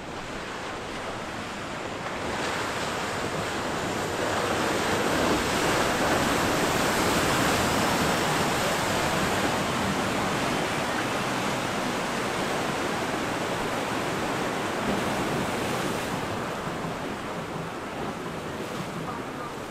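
Rushing water from an 80-foot Viking sportfishing yacht's hull and wake as it runs past close by, mixed with surf and wind on the microphone. The rush swells to its loudest about a third of the way in and fades toward the end.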